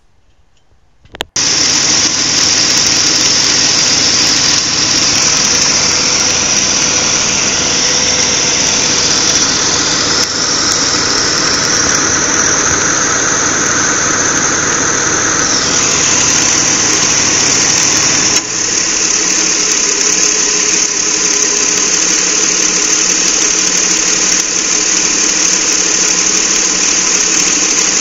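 1993 Nissan Maxima engine running, with a loud, steady high-pitched squeal over it. The sound starts abruptly about a second in, and the low running sound drops away about two thirds of the way through.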